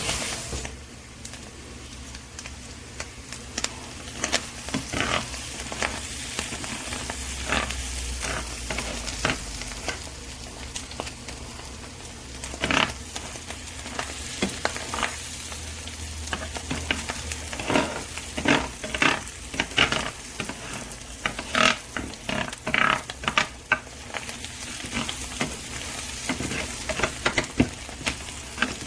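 Food sizzling in a square nonstick grill pan, with frequent short scrapes and taps of a utensil against the pan, more of them in the second half.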